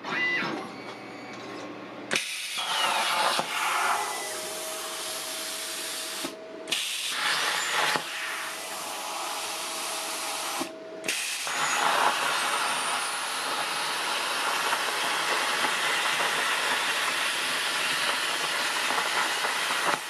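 Hynade CUT60DN plasma cutter cutting steel: a loud, steady hiss of the arc and compressed air starting about two seconds in, with a steady tone for several seconds. The hiss breaks off twice briefly.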